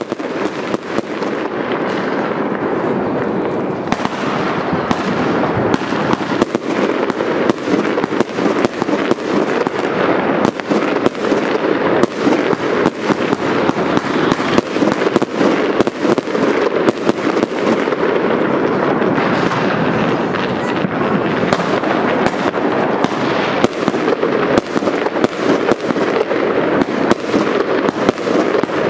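Many consumer fireworks and firecrackers going off at once: a continuous, dense crackle of rapid bangs and pops with no break.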